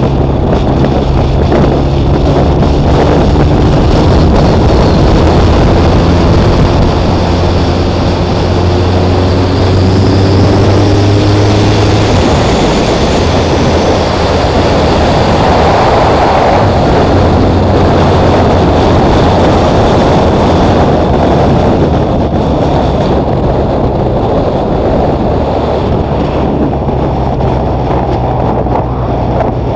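Motorcycle engine running at road speed, heard through heavy wind and road noise on a bike-mounted camera's microphone. The engine note changes about halfway through.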